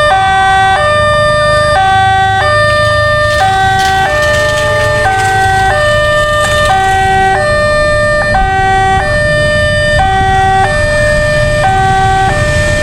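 Railway level-crossing electronic warning siren sounding, alternating between two tones about every 0.8 s, over a steady low rumble. It is the warning that a train is approaching the crossing.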